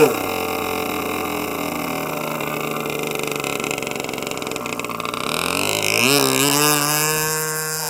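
Small 8cc two-stroke gas engine of an RC model plane. The throttle is chopped from high revs to a low idle, then opened up again about six seconds in with a wavering rise to a steady middle speed.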